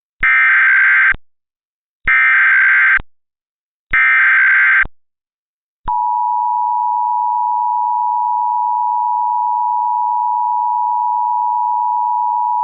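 Emergency Alert System tones: three short bursts of SAME digital header data, about a second each, then about six seconds in the steady two-tone EAS attention signal (853 and 960 Hz sounded together) begins and holds.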